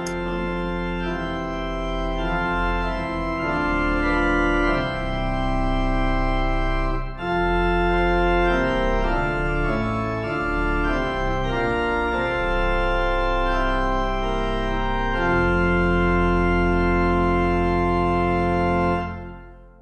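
Organ playing a closing voluntary in slow sustained chords, ending on a loud held final chord that stops a second or so before the end and dies away.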